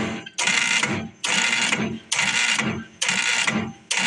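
Electric solenoid pulsed on and off by a timer, giving a harsh buzz each time it is energised: about six buzzes, each just under a second long with short breaks between them.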